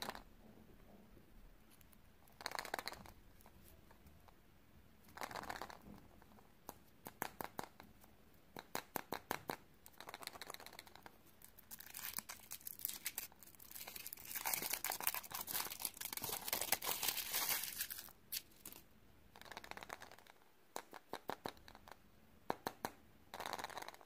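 Thin foil wrapper being crinkled and peeled by hand off a chocolate surprise egg. Short crackling bursts and quick clicks come first, then a louder, continuous stretch of tearing and rustling about halfway through.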